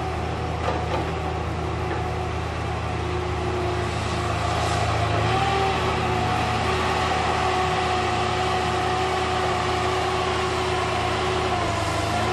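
Heavy diesel machinery of a log loader and CSI DL 4400 slasher saw running steadily: a continuous engine drone with a steady high hydraulic whine that wavers slightly in pitch now and then.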